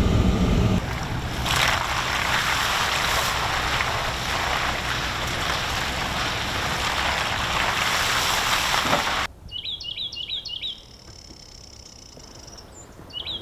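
A vehicle engine hums for under a second, then a loud, steady rushing of wind and travel noise from riding along a dirt track through the woods. About nine seconds in it cuts to quiet, with a small songbird singing short, rapid runs of high notes twice.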